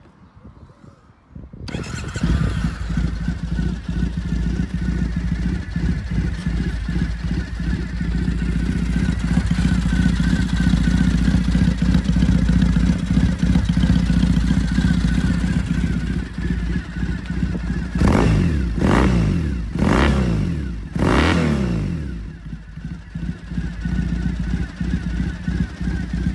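A 2015 Triumph Thruxton's 865 cc parallel-twin engine starts about two seconds in and settles into a steady idle. Near three-quarters of the way through, the throttle is blipped several times in quick succession, each rev rising and falling, before the engine drops back to idle.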